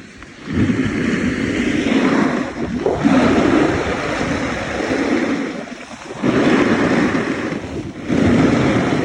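Snowboard edges scraping and carving over stiff, chewed-up, icy snow, the hiss swelling with each turn and easing briefly about six and eight seconds in, with wind rushing over the microphone.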